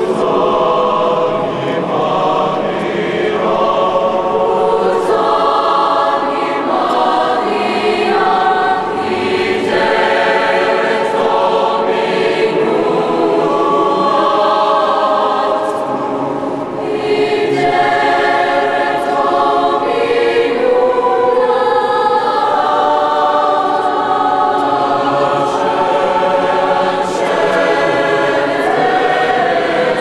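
Mixed choir of young male and female voices singing in a stone cathedral, holding long chords, with a short break between phrases a little past halfway.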